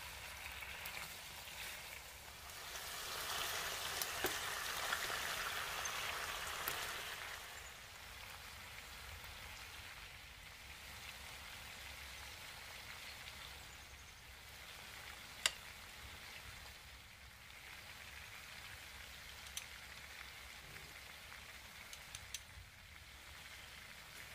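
Food sizzling and crackling in hot oil in a pan, louder for a few seconds near the start and then settling to a steady sizzle, with a sharp click about two-thirds of the way through.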